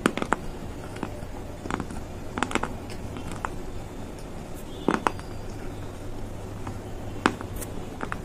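Close-miked chewing of baked clay pot pieces: scattered sharp crunches and clicks, the loudest a cluster about five seconds in and a single crack near seven seconds, over a low steady hum.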